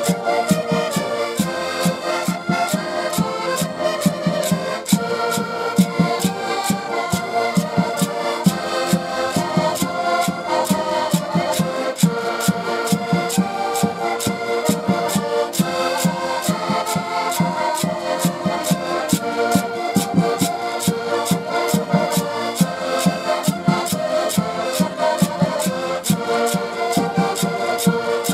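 Ensemble of diatonic button accordions (concertinas) playing a tune together in unison chords, with a steady percussive beat underneath.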